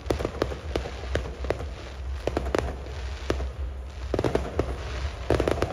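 Aerial fireworks going off in quick succession: a running string of sharp bangs and pops, with dense clusters of crackling about four seconds in and again near the end, over a steady low rumble.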